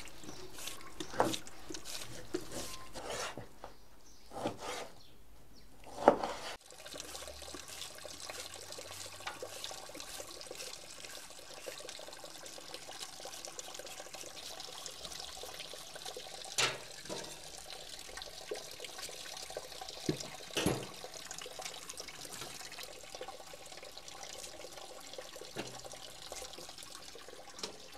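A knife scraping and knocking on a cutting board as fat and membrane are trimmed from raw beef. About six seconds in, this gives way abruptly to a steady rushing hiss with a few sharp clinks.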